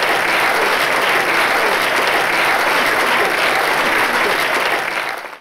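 Audience applauding steadily in a theatre, cut off abruptly at the very end.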